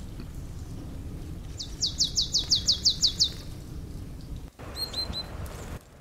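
A small songbird sings a quick run of about nine high notes, each falling in pitch, then gives a few short high calls a second or so later, over a steady low background rumble.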